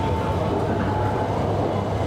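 Hanoi Metro Line 2A train running along its elevated track, heard from inside the car: a steady, even rumble of wheels and running gear, with a faint high tone that fades out within the first second or so.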